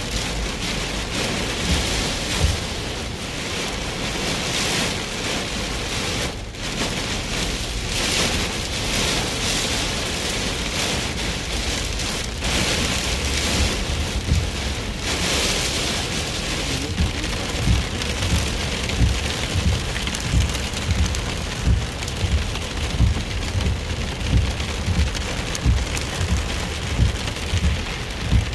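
Heavy rain from Hurricane Ida beating on a car, a steady loud hiss with irregular low thumps that come more often in the second half.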